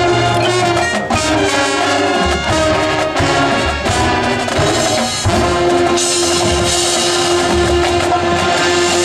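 Marching band brass and drums playing loudly: changing chords for the first half, then a long held brass chord with a wash of cymbals over the last few seconds.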